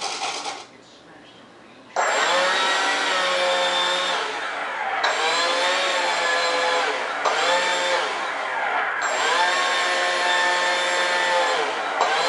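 Electric ducted fan (70 mm, ten-bladed Changesun unit on a 2600 kV motor) cutting in suddenly about two seconds in with a loud, high whine. It is throttled back and up again about four times, the pitch falling and then climbing each time.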